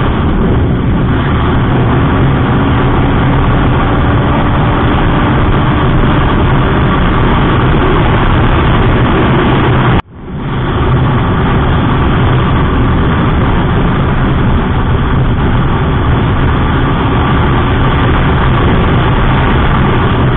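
A sport motorcycle riding at speed, its engine running steadily under heavy wind rush on the camera microphone. The sound drops out sharply about halfway through and comes straight back just as loud.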